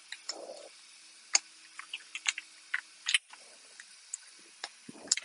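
Irregular small clicks and ticks from a tire plug repair kit being handled as the sticky plug strips are taken out, about a dozen sharp clicks in all.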